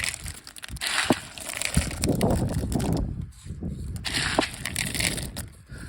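Beans being pushed and packed in by hand: irregular bursts of gritty, crushing noise with a short lull about three seconds in and a few sharp ticks.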